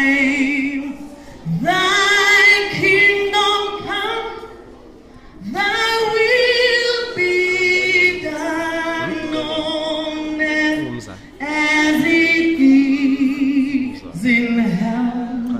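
A woman singing solo into a microphone, in long phrases of held notes with a wide vibrato, broken by short pauses for breath.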